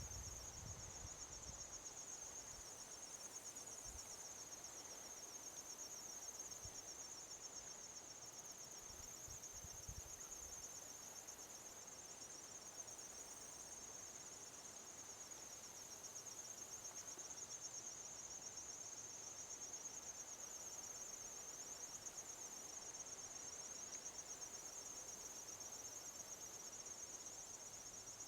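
Crickets trilling in a steady, continuous high-pitched chorus, with a few faint low rumbles near the start and about ten seconds in.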